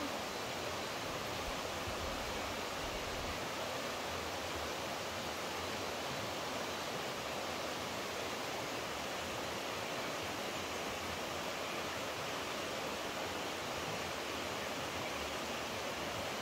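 Flowing water rushing steadily, an even unbroken hiss with no distinct splashes or other events.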